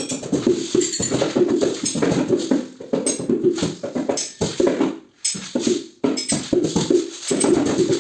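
Hand percussion played in a fast, improvised rhythm: dense strokes with a jingling top, briefly stopping twice about five and six seconds in.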